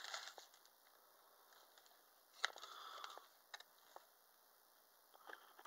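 Faint rustling of tissue paper and packaging being handled, with a single sharp click about two and a half seconds in and a few small ticks later.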